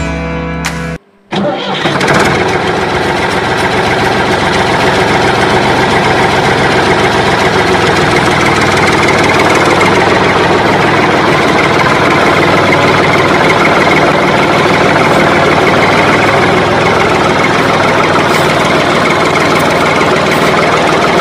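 Tractor engine sound effect laid over the toy's movement: it starts about a second in, after a short gap, and then runs steadily and loudly.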